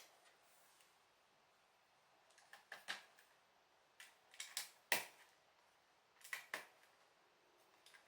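LEGO bricks clicking and knocking as plastic pieces are handled and pressed together: short sharp clicks in three small clusters, the loudest about five seconds in.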